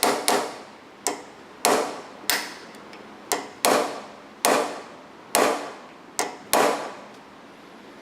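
Hammer striking a small steel punch, metal on metal: about eleven sharp blows at an uneven pace, each ringing briefly. The blows are driving back the wedged-over tabs that hold the end plate on a Rolls-Royce Silver Shadow door lock solenoid.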